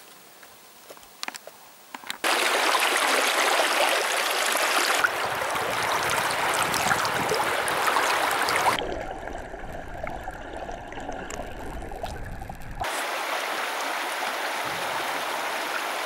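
Shallow river water running over pebbles, a steady rush that comes in suddenly about two seconds in after a quiet start with a few faint clicks; its tone shifts a few times as the shots change.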